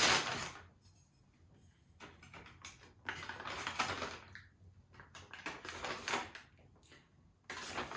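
Mylar food bag being handled and crinkled, in irregular bursts of rustling with short pauses between.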